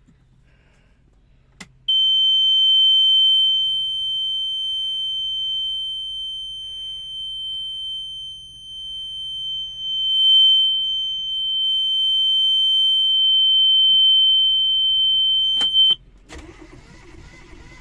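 A small inboard diesel's control-panel warning buzzer sounds as one loud steady high tone for about fourteen seconds after a click of the key, stops with another click, and the engine then cranks and starts running in the last second or so.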